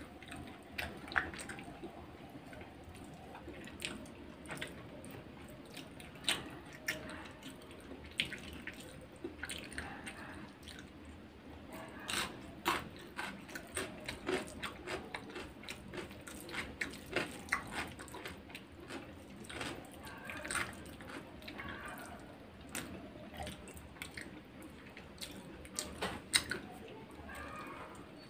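Wet, sticky clicking and squishing of a bare hand mixing biryani rice with gravy on a plate, in many small irregular ticks that come thickest in the middle.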